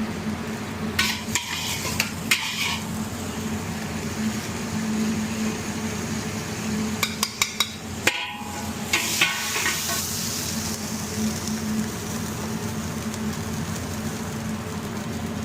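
Food frying in a pan while it is stirred with a metal utensil: a steady sizzle, with short bursts of clinking and scraping against the pan about a second in and again around seven to nine seconds, the last ones ringing briefly.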